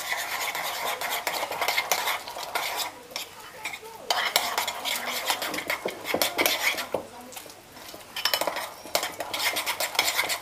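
Spoon beating a thick batter in a small bowl: rapid clinking and scraping against the bowl's sides, with two short pauses about three and eight seconds in.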